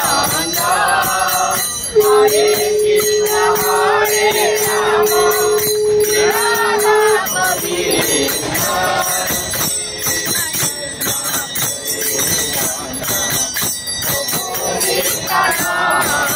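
Devotional aarti music: a melody is sung over continuous rapid ringing of a bell, with one long steady note held for about five seconds, starting about two seconds in.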